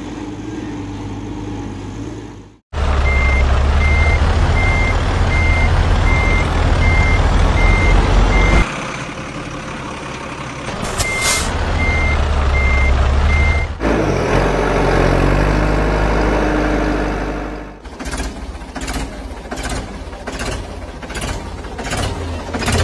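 Truck reversing alarm beeping at an even pace, a little under two beeps a second, over a loud deep engine rumble. It runs in two stretches, with a short break between them. A rapid run of sharp clicks follows near the end.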